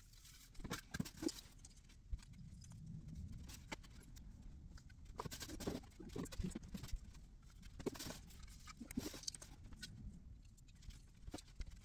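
Faint handling noises: scattered light clicks and rustles as Christmas ornaments are taken from a cardboard box and hung on an artificial tree, with a few footsteps on a wood floor.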